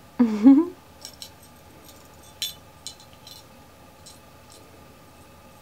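Small jingle bell on a feather cat toy tinkling faintly and irregularly as the cat chews and bats it. A short voice-like sound comes just before, in the first second.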